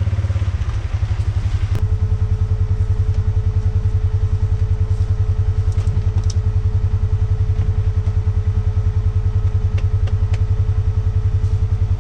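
Off-road vehicle engine running at a steady idle, a fast, even low pulse. A faint steady tone joins it about two seconds in, and a few light clicks sound later on.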